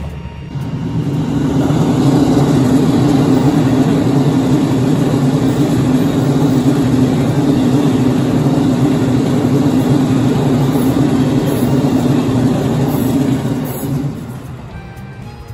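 JR Central KiHa 85 series diesel express train passing close by, its diesel engines droning steadily as it runs past. The sound builds up over the first second or two and fades away near the end as the train leaves.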